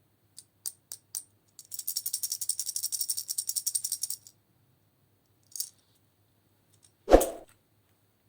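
Hard little objects being handled: a few light clicks, then a fast, jingly rattle for about two and a half seconds, like something small shaken in a container. One loud thump follows about seven seconds in.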